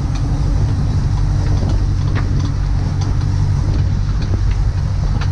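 Fishing boat's engine running steadily with a low drone, under wind and sea noise, with a few faint clicks.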